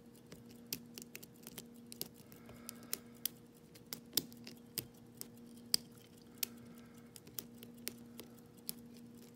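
Metal lock pick working the pin tumblers of a challenge lock cylinder under a tension wrench: irregular small clicks and ticks as the pins are lifted one after another.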